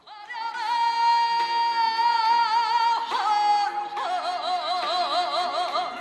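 Korean trot music: the melody holds one long high note for about three seconds, then drops to a lower note sung or played with a wide vibrato.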